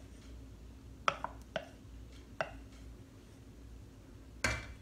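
Wooden spoon tapping and scraping against a stainless steel saucepan while a thick melted mixture is stirred: a few light knocks, then a louder clatter near the end.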